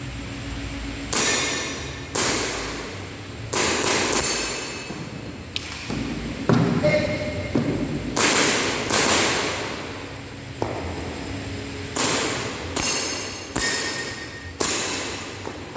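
Airsoft gun shots fired at irregular intervals a second or so apart, about a dozen sharp reports, each with a ringing decay; a few are followed by a short metallic ring.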